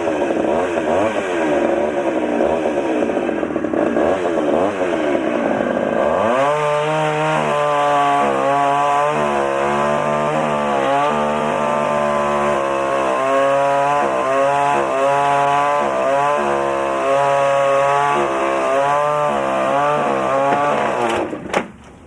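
Chainsaw running while cutting wood, its engine pitch wavering as the chain bites. About six seconds in it settles into a steadier note that dips again and again under load, then cuts off shortly before the end.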